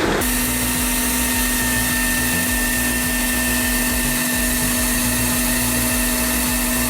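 A machine running steadily with a constant whine over a rushing noise. It comes in abruptly at the very start, replacing a different rumbling sound.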